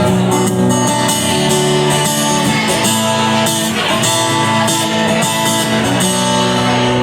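Live band playing an instrumental stretch near the end of a song, led by strummed guitar over a steady beat.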